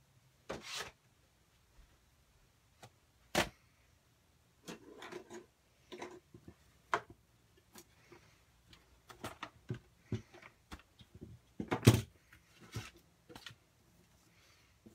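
Irregular knocks, clicks and rustles of objects being handled, with a sharp knock about three seconds in and the loudest cluster of knocks about twelve seconds in.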